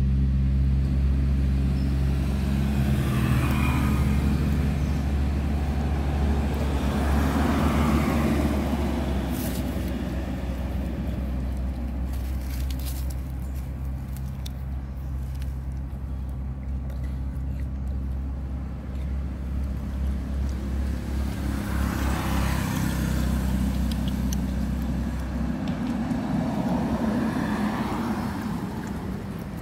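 Road traffic: a few vehicles pass one after another, each rising and fading over a few seconds. Under them runs a steady low hum that stops near the end.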